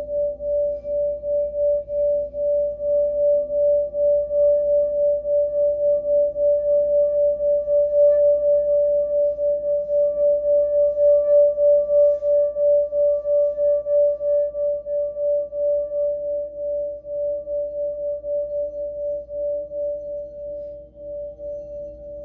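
A singing bowl rimmed with a wooden mallet, sounding one steady tone with a faint higher overtone. Its loudness pulses about two to three times a second as the mallet circles the rim, swelling toward the middle and easing off near the end.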